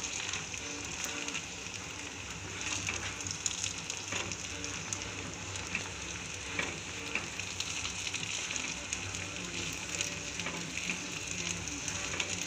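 Poha frying in oil in an iron kadhai over a medium gas flame: a steady light sizzle, with the scrape and soft knocks of a spatula stirring through it.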